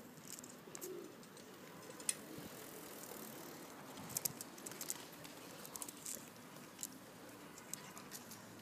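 Faint scattered ticks and scuffs of a mother dog's and her puppy's claws on asphalt as they play, with a small cluster of ticks a few seconds in.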